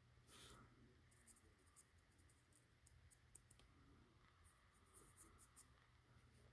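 Near silence, with faint scattered light ticks and scratches from small handwork.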